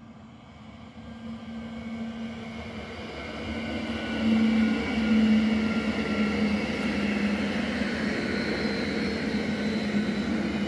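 ZSSK class 661 electric multiple unit approaching and running past on the near track. Its rumble grows louder over the first four seconds or so, then holds steady, with several steady whining tones over the wheel noise.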